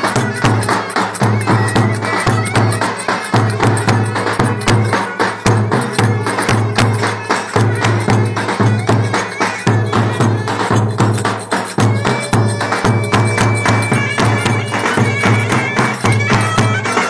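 Turkish folk dance music for a wedding: clarinets play a reedy melody over a driving beat of drums and tambourine-like percussion.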